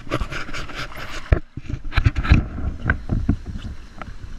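Sea water splashing and sloshing against a handheld waterproof action camera at the surface, with irregular knocks and thumps as it dips in and out of the water.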